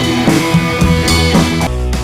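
Background rock music with drums and electric guitar, no vocals; the drums drop out near the end.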